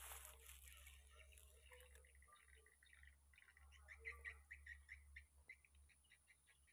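Faint, high-pitched animal chirps over near silence, with a quick run of them about four seconds in.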